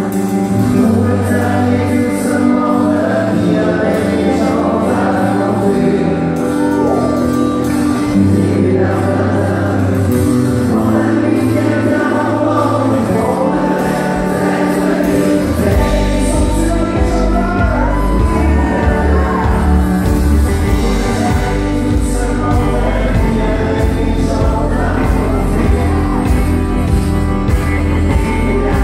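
Live band playing a song with lead singing over electric and acoustic guitars. The low end gets much heavier about halfway through, as the bass and drums come in harder.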